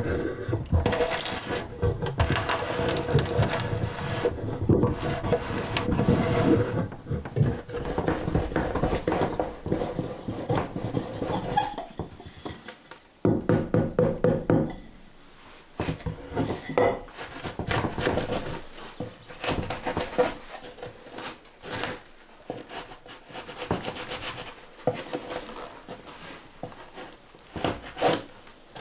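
Hand tools scraping and cutting into a wooden board, with wood shavings. The scraping is dense and continuous for about the first dozen seconds, then breaks into scattered strokes and knocks.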